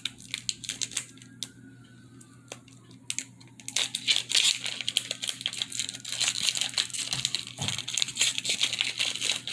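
Plastic wrapper of a Pokémon trading-card pack being torn open and crinkled by hand, a wrapper that is hard to open. A few scattered crackles come first, then dense crinkling from about three and a half seconds in.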